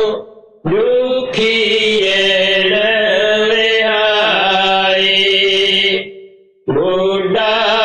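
A man's voice chanting a devotional hymn verse in long drawn-out notes that waver only slightly. There is one long phrase, a short pause about six seconds in, and then the next phrase begins.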